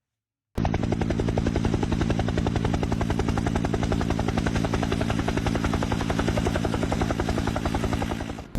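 Loud, steady engine drone with a fast, even pulse, starting abruptly about half a second in and cutting off just before the end.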